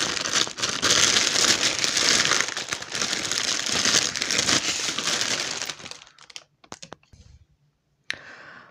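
Thin clear plastic bag crinkling as it is pulled open by hand, stopping about six seconds in, followed by a few faint rustles.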